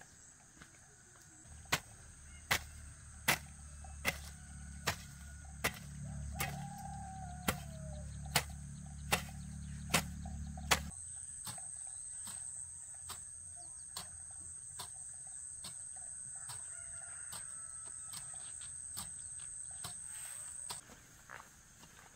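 Regular sharp knocks, about one every 0.8 seconds for some nine seconds over a low hum, with chickens clucking and crowing in the background. After the knocks stop, a steady high-pitched whine runs on and cuts off near the end.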